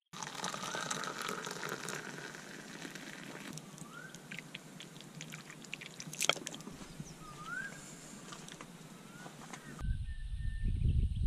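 Birds calling short rising whistles several times over a steady hiss, with a sharp clink about six seconds in. Near the end a low wind rumble on the microphone sets in and birds go on calling.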